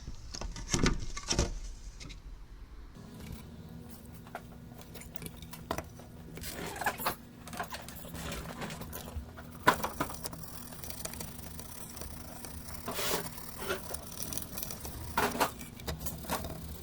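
Scattered clicks, taps and scrapes of small metal parts and tools being handled on a workbench, with a low steady hum starting about three seconds in.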